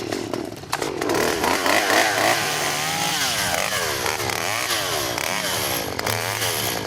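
A chainsaw cutting into a small tree. Its engine pitch rises and falls again and again as the throttle is worked and the saw bites into the wood.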